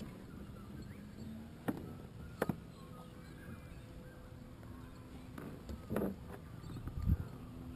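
Handling noise in a fishing kayak: a few scattered knocks and taps over a low, steady background of water and movement.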